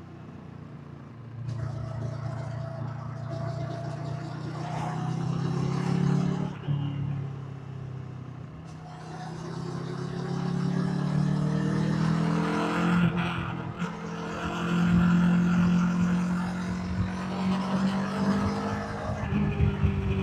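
Kawasaki Versys 650's parallel-twin engine and stock exhaust under way on the road. The revs climb, drop off sharply about six seconds in, pull up again, dip briefly near the middle, then hold steadier and louder.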